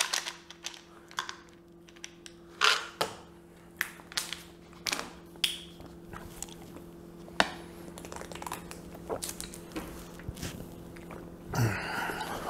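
Scattered clicks and short rustles of a plastic capsule bottle of Arginine Pro and its capsules being handled at the counter, over a faint steady hum. A short throaty sound near the end.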